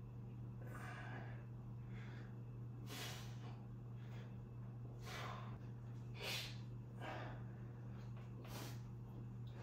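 A man breathing hard with effort through a set of one-arm dumbbell rows, a short sharp exhale every second or two, over a steady low hum.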